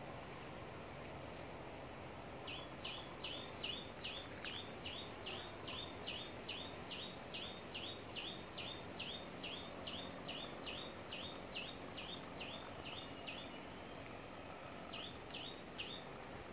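A bird calling a long series of quick, evenly spaced high chirps, about two or three a second, breaking off a little before the end and then giving three more. Steady background hiss underneath.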